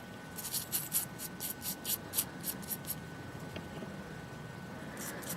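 Toothbrush bristles scrubbing a small gilt metal find, in quick short strokes about four a second that stop about three seconds in, with a couple more strokes near the end.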